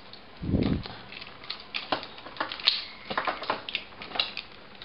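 Plastic parts of a Transformers Galaxy Convoy action figure clicking and knocking as it is handled, with a dull thump about half a second in.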